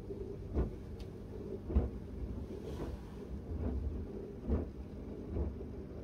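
Miele W1 WCR 890 WPS front-loading washing machine tumbling a load of shirts: a low drum rumble with a soft thud of laundry dropping about once a second, and a brief hiss about halfway through.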